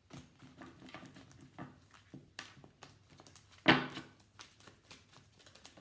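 Tarot cards being shuffled by hand: a run of soft, irregular card clicks and flutters, with one much louder knock about three and a half seconds in.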